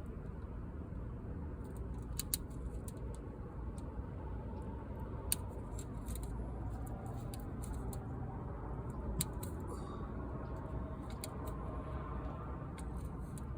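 Scattered sharp clicks and snips from hand work on a camper window screen, over a steady low hum.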